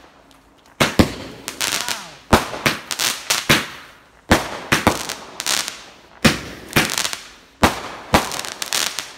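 Fireworks going off in a rapid series: clusters of sharp bangs and crackling, each cluster about a second long, coming roughly every one and a half seconds after a brief lull at the start.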